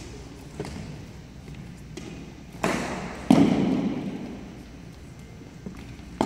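Archery shots from youth bows in a gymnasium: two sharp thwacks close together about three seconds in, each echoing around the hall, with fainter knocks near the start and end.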